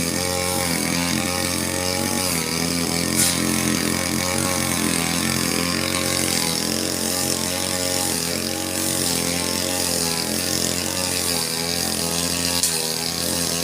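Falcon 328 two-stroke brush cutter running while cutting grass, its engine pitch wavering up and down with the load. Two brief sharp ticks stand out, one about three seconds in and one near the end.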